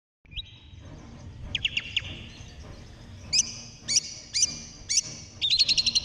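Long-tailed shrike (cendet) singing: a few sharp, slurred notes, then four loud notes about half a second apart. Near the end it breaks into a fast chatter, a mimicked lovebird chatter.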